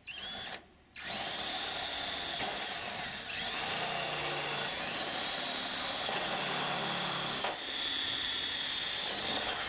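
Power drill with a step drill bit boring holes through thin aluminium aircraft skin, about 0.020 inch thick. It gives a short burst at the start, pauses, then runs steadily with a high whine from about a second in.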